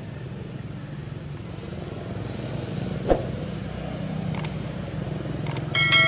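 Steady low hum of a passing motor vehicle, with a short high chirp about half a second in and a sharp click around three seconds. Near the end come two light clicks and a ringing bell chime, the subscribe-button sound effect.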